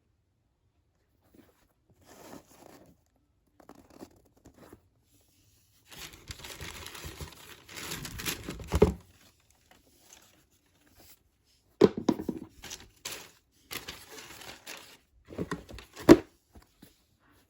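Packing paper being handled, crinkling and tearing in several bursts, with a few sharp crackles.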